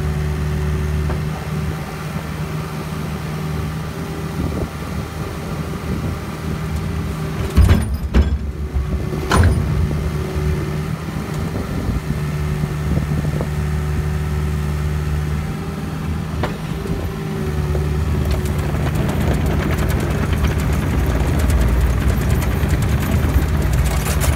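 Excavator diesel engine running steadily, with two loud bangs about a second and a half apart near the middle as the released boulder drops into the steel dump truck box. The engine grows louder over the last third as the machine works.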